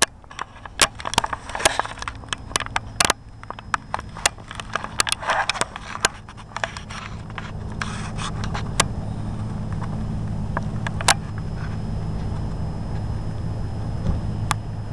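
Clicks, knocks and scrapes of a camcorder being handled and set down in the grass, thickest in the first few seconds, then a steady low hum.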